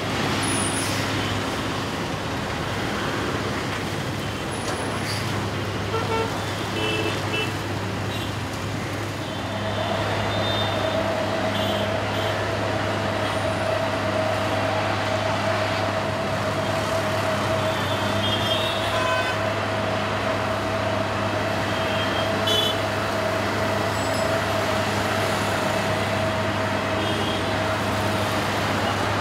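Busy road traffic, with cars, motorbikes and auto-rickshaws passing and short horn toots now and then. A steady low drone runs underneath, joined about a third of the way in by a steady whine.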